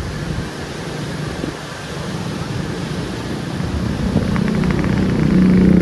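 Road noise on the move: wind rushing over the microphone along with vehicle engine noise. In the last couple of seconds a steady low engine drone grows louder.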